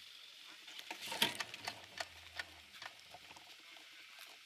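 Faint scattered clicks and rustles of dry grass against a bike-mounted camera as the fallen bicycle is moved, the sharpest click about a second in.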